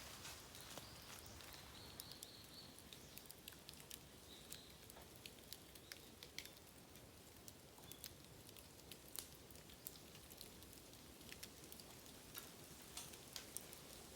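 Bamboo burning in an open fire: faint, irregular crackles and pops over a soft sizzle, with a brief faint high whistle about two seconds in.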